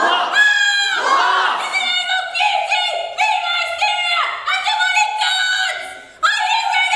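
Several women's voices giving high-pitched, drawn-out cries without words, overlapping one after another, some sliding down in pitch. There is a short break about six seconds in before the cries start again.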